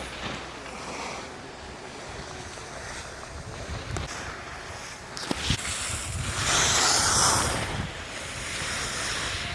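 Wind rushing over the microphone, swelling to its loudest about six to eight seconds in.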